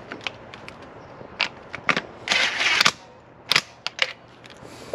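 Sharp metallic clicks and knocks of hand tools and spark-plug parts being handled, with a short dense rattling burst about two and a half seconds in.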